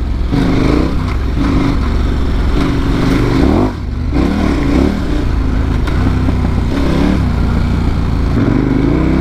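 Off-road motorcycle engine under way, its pitch rising and falling again and again as the throttle is opened and closed, with a brief throttle-off dip a little under four seconds in.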